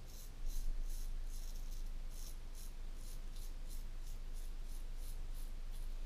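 Portland Razor Sprite straight razor scraping stubble off a lathered neck in short strokes, about three a second, with a steady low hum underneath.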